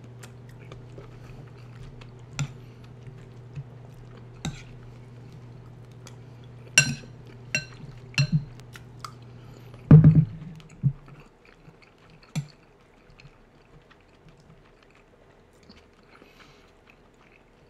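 Close-up chewing of a mouthful of stew and rice, with scattered sharp mouth clicks and smacks. A louder thump comes about ten seconds in, and a steady low hum in the background stops soon after it.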